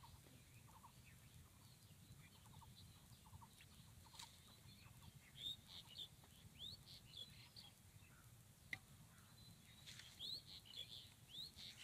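Near silence with faint bird chirps: short, high calls scattered throughout, bunching together about halfway through and again near the end.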